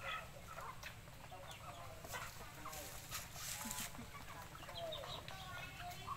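A flock of chickens clucking as they feed, with many short overlapping calls and a few brief scratchy noises.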